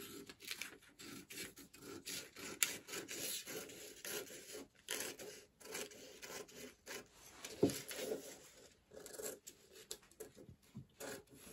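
Scissors cutting through a paper sewing pattern: a run of uneven snips with the paper rustling and scraping against the table, one stroke louder than the rest about eight seconds in.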